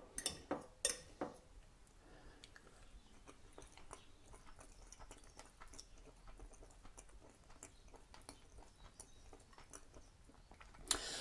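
A few sharp clicks in the first second, then faint chewing as a mouthful of smoked crab claw meat is eaten, with a brief louder sound near the end.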